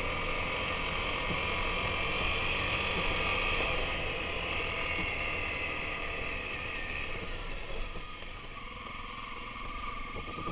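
A vehicle's engine running steadily while driving along a gravel forest road. It eases off and gets a little quieter about seven to eight seconds in.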